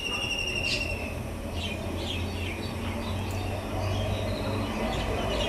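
Birds calling: a high, even trill that ends about a second in, then scattered short chirps, and another trill near the end, over a steady low hum.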